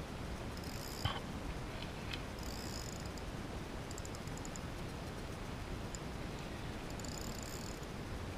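Spinning reel being cranked, its gears whirring in short spells over a steady low rumble of wind on the microphone, with a single sharp knock about a second in.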